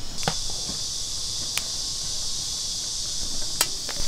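Steady high-pitched chorus of insects, with a few sharp clicks over it.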